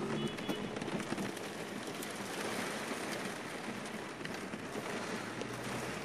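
Rain falling on a clear roof panel: a steady hiss of many drops, with scattered sharper taps of single drops.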